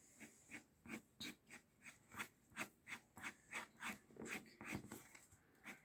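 Colouring pencil shading on paper: faint, quick back-and-forth scratching strokes, about three a second.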